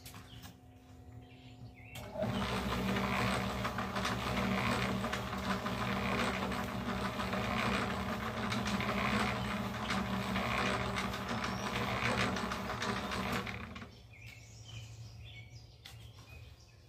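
Small electric cement mixer running, its drum churning a load with a loud noise that pulses about once a second, then dropping back to the motor's hum a couple of seconds before the end.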